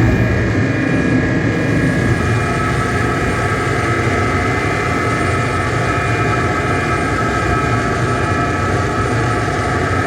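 Dense electronic noise drone from DIY square-wave oscillators and effects: many sustained tones layered over a low, rumbling noise, holding a steady level.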